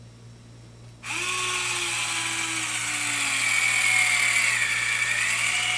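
Vidacare EZ-IO battery-powered intraosseous driver drilling its needle into the leg bone: the motor starts suddenly about a second in and runs for about five seconds with a high whine that slowly drops in pitch as it bores in, then stops.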